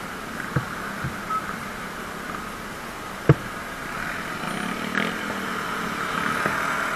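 Motorcycle running while riding, a steady engine and road noise, with a few light knocks and one sharp knock about three seconds in.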